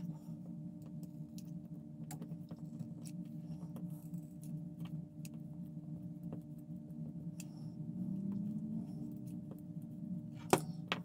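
A small motor hums steadily, rising slightly in pitch about eight seconds in. Faint taps and clicks from handling a small plastic part come through it, with a sharper click near the end.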